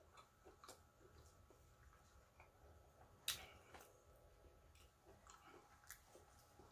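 Faint wet eating sounds: scattered soft clicks and squishes of chewing and of smoked turkey leg meat being pulled apart by hand, with one sharper click about three seconds in.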